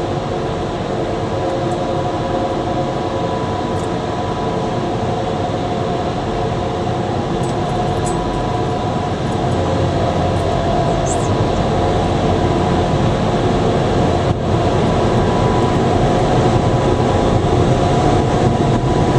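Ryko Thrust Pro car-wash dryer blowers running: a steady, loud rush of air over a constant fan hum, growing a little louder in the second half as the car moves in under the dryer.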